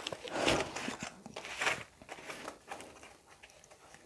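Plastic wrap and foam packaging crinkling and rustling as they are handled and cut open, with two louder rustles in the first two seconds and fainter rustling after.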